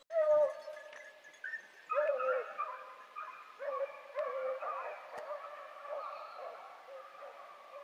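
A pack of beagles baying in chorus while running a hare, the hounds giving tongue on its scent. Several voices overlap in wavering, drawn-out cries that start abruptly and keep going.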